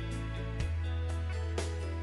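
Instrumental background music: a deep held bass note that shifts pitch about half a second in, under plucked notes struck about once a second.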